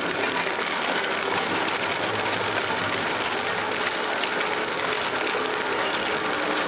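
Industrial car shredder's hooked cutter discs crushing and tearing through a car body: a steady, dense crunching of sheet metal made up of many small snaps and crackles.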